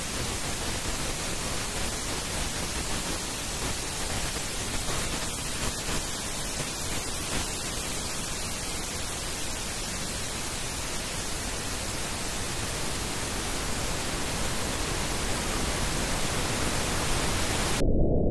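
Pink noise test signal from a 5.1-channel audio check pattern: a steady, even hiss. Near the end it switches to low rumble only, the band-limited noise for the LFE subwoofer channel.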